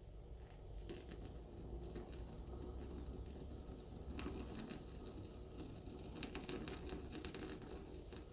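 Milk being frothed in a cup with a handheld frother wand: a faint patter of bubbling foam with small crackling clicks, busiest about six to seven seconds in.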